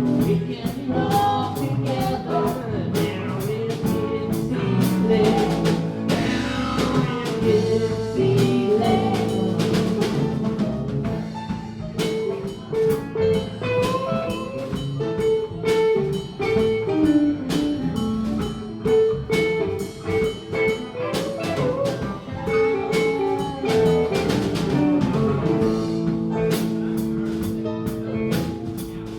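A live band playing a blues-rock song over a steady beat, with a lead line whose notes bend in pitch.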